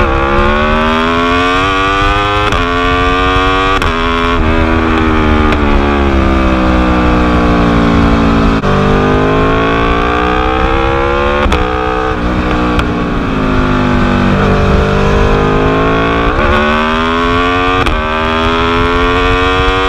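Aprilia RSV4's V4 engine through an Austin Racing exhaust, revving hard. The pitch climbs in steps with short dips between them, then falls away over several seconds, several times over. A few sharp pops and crackles come from the exhaust as the revs drop.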